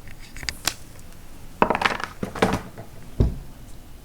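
Clicks and clatters of small hard objects being handled and set down on a table: a few light clicks near the start, a cluster of clatters around the middle, and a duller knock about three seconds in.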